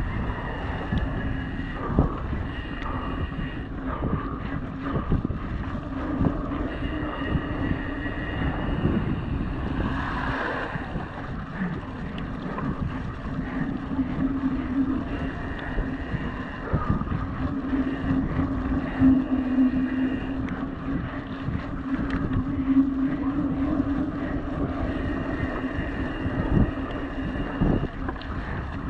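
Mountain bike ridden over a muddy dirt trail, heard from a chest-mounted action camera: wind noise on the microphone and the tyres rolling through mud, with frequent knocks and rattles from the bike over bumps and a steady low hum underneath.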